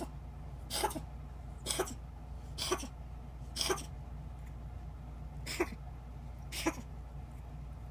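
Kitten coughing: a run of about seven short hacks roughly a second apart, with a longer pause in the middle, stopping about seven seconds in.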